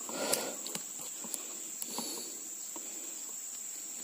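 Steady, high-pitched drone of insects, with a brief rustle and a few light clicks near the start.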